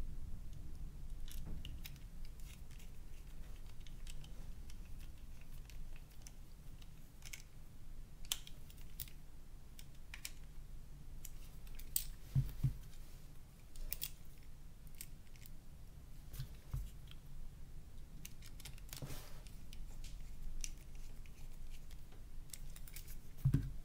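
Scattered small clicks, ticks and scrapes of a precision screwdriver and the plastic and metal casing of a Nokia N91 phone being handled while its tiny screws are worked, with a couple of louder knocks, about halfway through and near the end, over a low steady hum.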